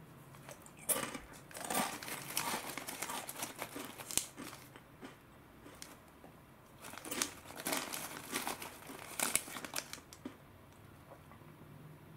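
Foil-lined snack bag of Ottotto crackers crinkling as fingers dig through the pieces inside, in two spells of a few seconds each with a quieter pause between them.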